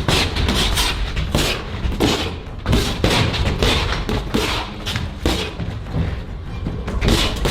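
Boxing-glove punches landing in an irregular string of thuds, two or three a second, over background music with a steady low bass.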